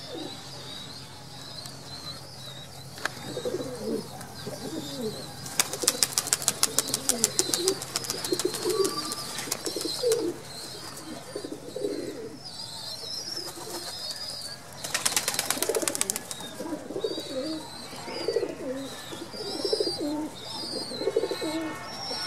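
Domestic pigeons cooing, repeated low throaty coos over thin, high squeaking calls of squabs begging as they are fed in the nest boxes. Two spells of rapid fluttering clatter come in, a longer one about six seconds in and a short one near fifteen seconds.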